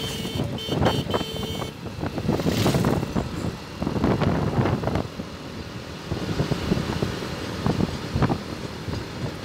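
Rumble and wind noise of a moving road vehicle, uneven and loud throughout, with a high-pitched tone that breaks off twice in the first two seconds and a brief rising whoosh just after.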